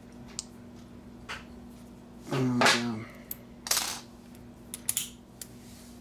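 Steel lock-picking tools, a pick and a tension wrench, being laid down on a wooden tabletop: a few light metallic clicks and one brief clatter in the middle.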